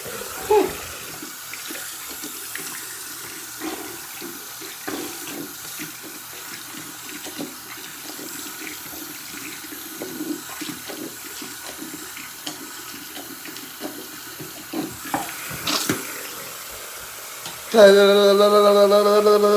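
Tap water running into a sink, steady, with faint clinks. About 18 seconds in, a loud, steady, pitched drone begins and carries on.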